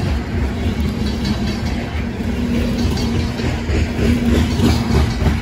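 Freight train hopper cars rolling past close by: a steady rumble with the clatter of steel wheels on the rails.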